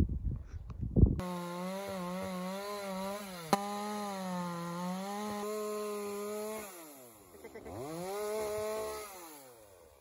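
Makita cordless chainsaw whining steadily as it cuts into a tree trunk, its pitch sagging slightly under load, with one sharp snap partway through. About seven seconds in the trigger is eased off, the motor spins up again briefly and then winds down.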